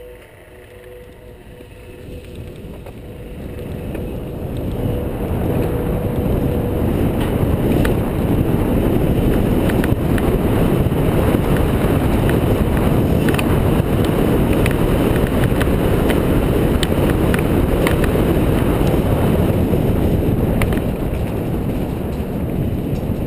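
Wind rushing over the camera microphone, with tyre rumble and rattling from a downhill mountain bike ridden fast on a dirt trail. It builds over the first several seconds as the bike picks up speed, then holds steady, with scattered clicks and knocks from the bike over rough ground.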